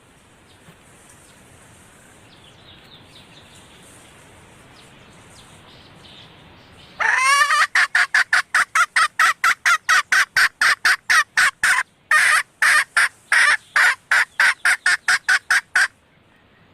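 Female red junglefowl calling: after a few seconds of faint background, a fast run of short, sharp cackling notes, about three or four a second, with a brief break partway through.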